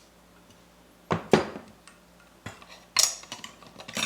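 Metal parts of a Mazzer Mini coffee grinder's doser clinking and knocking together as they are slid and pressed into place during reassembly. About five sharp clinks, starting about a second in, the loudest just after.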